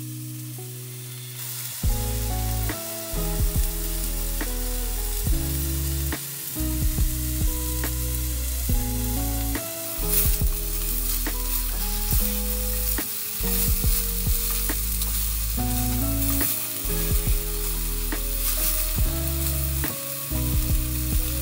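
Sliced pork sizzling as it is stir-fried in a pan on a gas-canister stove, with scattered sharp clicks. Background music with low notes comes in about two seconds in.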